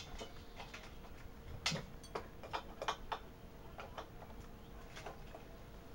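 Irregular light clicks and ticks of metal being handled as the air compressor's pressure gauge is turned by hand.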